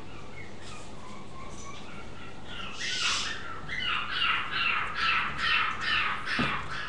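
Puppy crying: faint high whines at first, then from about three seconds in loud, high-pitched cries repeating about twice a second.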